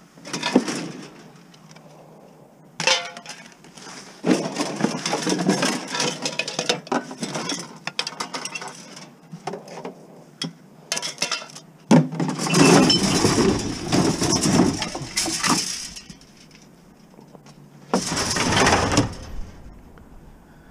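Scrap metal, a wire rack and bottles clattering and clinking as they are pulled out of a packed van load by hand, in several stretches of rummaging with short quiet gaps between them.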